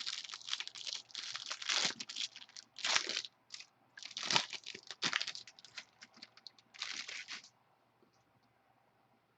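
Trading card pack wrappers being torn open and crinkled by hand, in quick irregular bursts of crackling that stop about two thirds of the way in.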